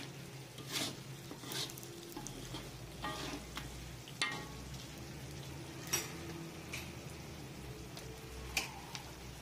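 A spatula stirring thick sambal with fried potato cubes and petai in a wok, giving several uneven scrapes and taps against the pan over a faint sizzle of frying.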